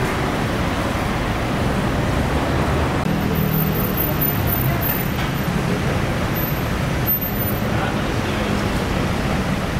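Steady street ambience of road traffic, an even noise with a low hum underneath.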